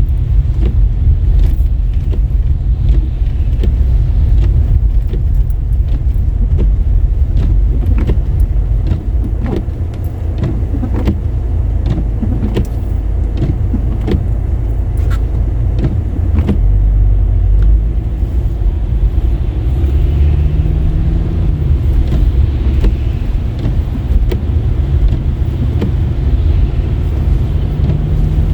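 Car driving on wet roads: a steady, heavy low road and tyre rumble with scattered sharp clicks and ticks through the first half. In the second half an engine hum rises in pitch in steps as the car speeds up.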